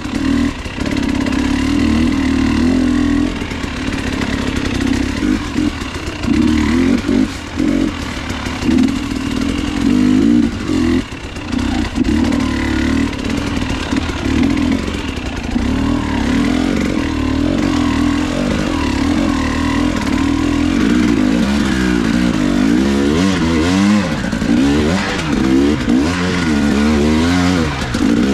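Motorcycle engine running continuously, its revs rising and falling again and again, with rattling clatter over it.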